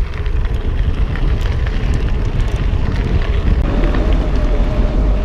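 Wind buffeting the microphone and gravel-bike tyres rolling over gravel road during a ride, a steady rumble with small scattered crunches and ticks. A faint steady whine joins a little past halfway.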